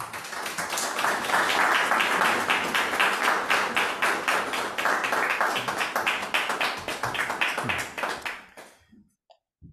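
Congregation applauding: many hands clapping in a dense patter that dies away near the end.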